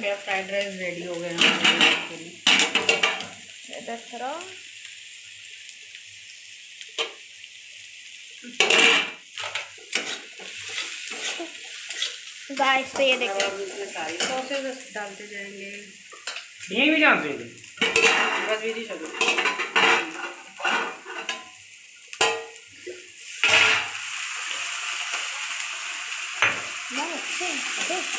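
Chopped onion, garlic, ginger, chilli and capsicum sizzling in oil in a kadhai, with a spatula repeatedly scraping and knocking against the pan as they are stir-fried for a gravy base. The sizzle grows louder and steadier for the last few seconds.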